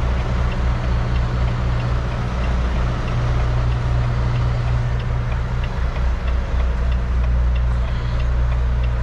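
Semi-truck diesel engine running low and steady, heard from inside the cab, with faint light ticking about twice a second.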